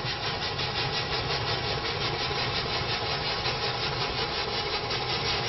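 Paintbrush scrubbing oil paint onto a stretched canvas in steady back-and-forth strokes.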